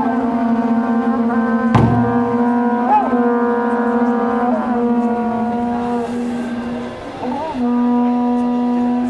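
Conch-shell trumpets (horagai) blown in long, sustained low notes, wobbling in pitch about three seconds in and breaking briefly around seven seconds before sounding again. A large taiko drum is struck once about two seconds in.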